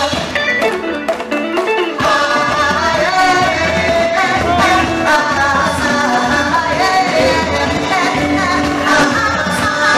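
Live band playing upbeat music with a singer, through a loudspeaker system. The bass drops out for about the first two seconds, then comes back in with the full band.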